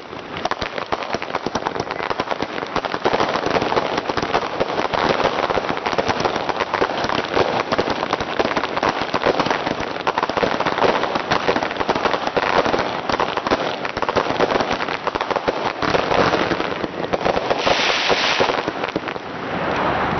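Fireworks crackling: a dense, unbroken run of rapid small bangs, like a long string of firecrackers, going on throughout.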